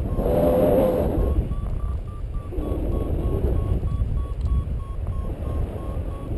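Wind buffeting the microphone in flight, with a paragliding variometer beeping faintly behind it, about four short beeps a second, the pitch edging up and down. The steady beeping is the vario's signal that the glider is climbing in lift.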